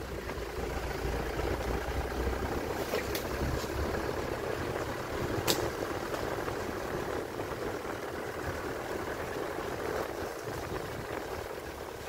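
Vehicle moving slowly along a dirt forest track: steady engine and road rumble, with two short sharp knocks, one about three seconds in and one about halfway.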